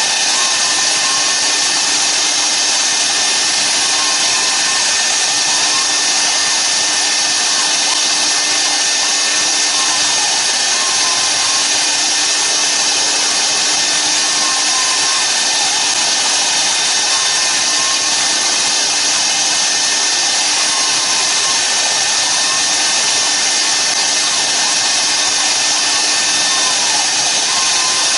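CNC router spindle running while its bit cuts a white cylinder turning on the machine's rotary axis: a steady, even cutting hiss with a constant whine throughout.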